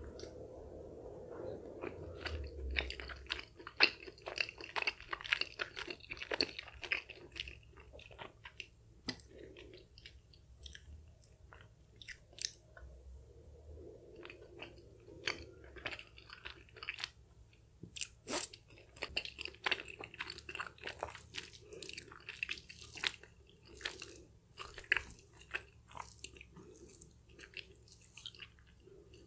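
Close-up chewing of sticky, chewy Korean spicy rice cakes (tteokbokki): a run of short wet clicks and smacks from the mouth, with one sharp louder click about two-thirds of the way through.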